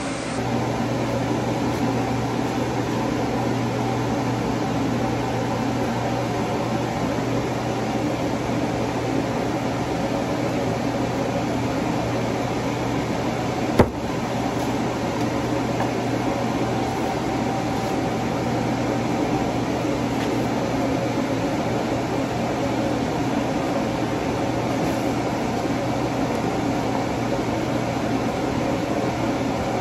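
Steady fan-like hum and hiss of a ventilation unit, with one sharp click about halfway through.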